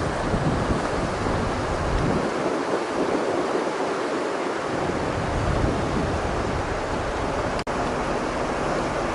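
Steady rushing noise of a heavy rainstorm, with low wind rumble on the microphone that eases off for a couple of seconds early on and then returns. The sound cuts out for an instant near the end.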